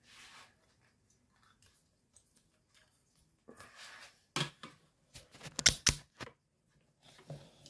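Handling noise from a phone being turned round in the hand: faint rubs and ticks, then a quick cluster of sharp clicks and knocks from fingers on the phone about four and a half to six seconds in.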